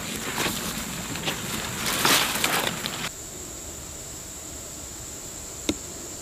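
Leaves and foliage rustling and crackling as a soldier in a leafy ghillie suit crawls through undergrowth, loudest about two seconds in and stopping suddenly about three seconds in. Then only a quiet steady hiss with a thin high tone, and a single sharp click near the end.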